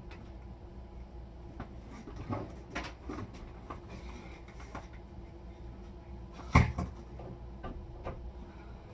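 Scattered clicks and light knocks of things being handled and set down, with one sharper, louder knock about two-thirds of the way through, over a steady low room hum.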